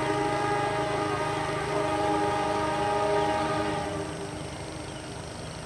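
Train horn sounding one long chord of several steady tones that fades out about four seconds in. A low steady rumble runs underneath.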